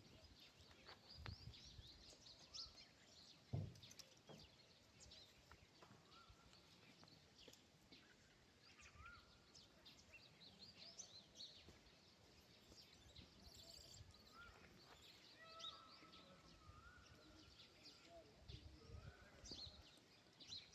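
Quiet outdoor ambience with faint, scattered high chirps and a few short whistled animal calls.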